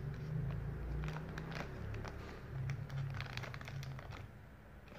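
Scissors cutting into a thin plastic toy bag, the plastic crinkling and crackling in many quick irregular clicks as it is handled. A steady low hum lies underneath.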